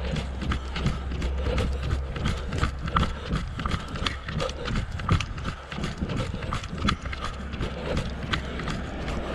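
Footsteps at a steady walking pace on a concrete sidewalk, about two steps a second, over a steady low rumble.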